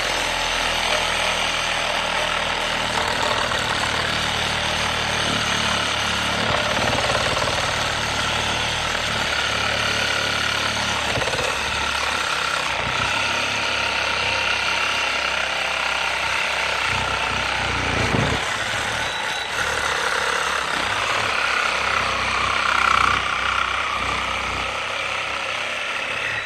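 Reciprocating saw running steadily as its blade cuts through the metal end of a microwave magnetron held in a vise.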